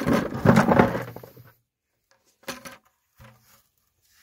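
Freshly dug carrots tumbling out of a stainless steel pan into a plastic bucket: a dense clatter of knocks lasting about a second and a half, then two brief soft knocks.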